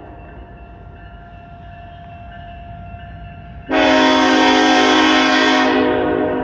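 Diesel freight locomotive's multi-chime air horn: a faint held note, then a loud chord blast starting suddenly about three and a half seconds in, lasting about two seconds before easing off.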